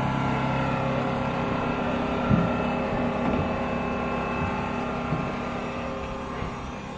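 Steady mechanical hum with several constant whining tones over a noisy rush, with a couple of dull knocks about two and three seconds in.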